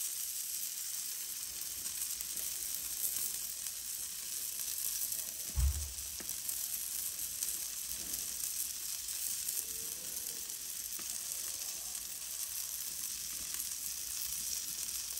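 Sausages sizzling on the cast-iron grate of a charcoal-fired Char-Griller AKORN Jr kamado grill, a steady hiss. There is a brief low thump about five and a half seconds in.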